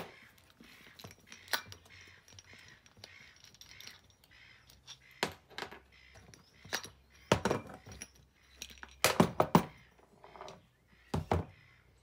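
Scattered sharp knocks and clinks of a small scooter wheel being taken apart by hand: the metal hub halves, bearing and tyre being separated and set down on a plastic table. The loudest knocks come in clusters about seven and nine seconds in.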